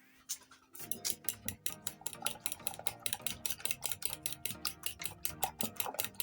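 A utensil beating rapidly against a bowl, the typical sound of eggs being whisked for French toast: an even run of sharp clicks, about seven a second, starting just under a second in.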